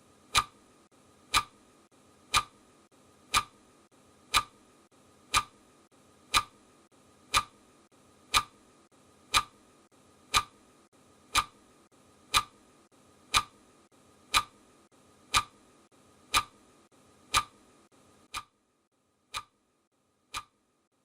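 Clock-tick sound effect of a countdown timer, one sharp tick every second. The last three ticks are quieter.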